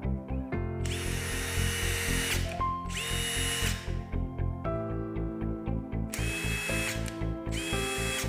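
Makita DTD172 brushless 18V impact driver spinning freely with no load, four short trigger pulls, each a high whine that rises as the motor spins up and cuts off when released.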